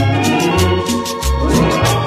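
Instrumental cumbia: an electronic organ holding chords over a bass bouncing between two low notes and a fast, even high percussion beat, with a rising pitch slide about one and a half seconds in.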